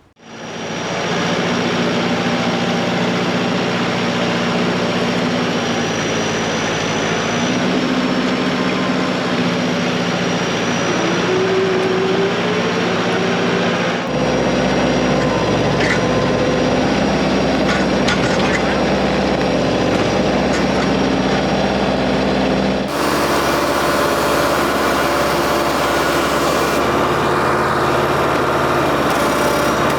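New Holland WorkMaster 55 tractor's diesel engine running steadily while it works, with a brief rising whine near the middle. The engine sound changes abruptly about halfway through and again about two-thirds through.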